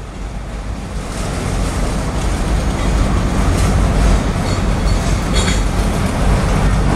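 Freight train of autorack cars rolling past, a steady rumble and rattle of steel wheels on rail that grows louder over the first few seconds.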